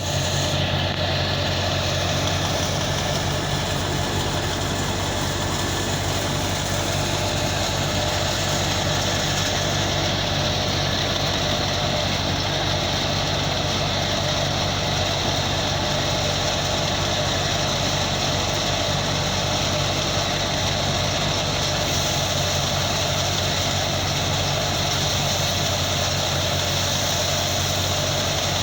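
Wheat thresher running steadily with its engine, a continuous low mechanical drone under a noisy whirr.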